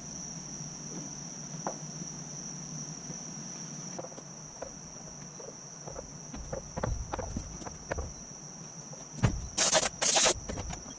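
Crickets chirring steadily in a single high, unbroken tone, with a few light knocks of handling in the second half and two short, loud bursts of noise about half a second apart near the end.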